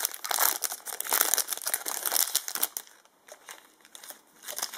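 Foil booster-pack wrapper crinkling and tearing as a trading-card pack is opened, dense for about three seconds and then dying down to a few faint rustles.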